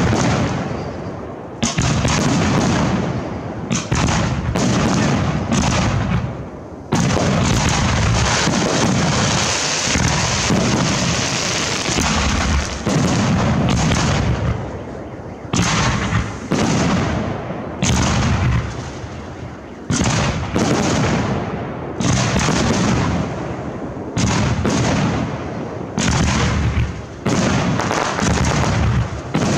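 Aerial fireworks being fired in quick succession. Launches and bursts come in dense volleys a second or two long, overlapping, with only brief lulls between them.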